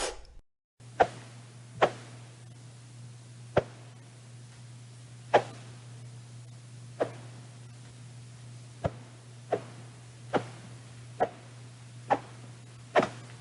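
About eleven quick, sharp swishes of something swung fast through the air, spaced unevenly, over a steady low hum.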